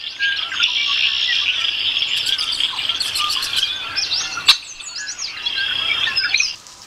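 Dense chorus of many birds chirping and calling, with one sharp click about four and a half seconds in; the chorus cuts off abruptly shortly before the end.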